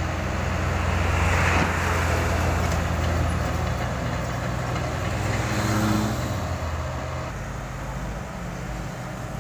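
Komatsu PC78US compact excavator's diesel engine running steadily, louder for the first several seconds and easing off after about six seconds.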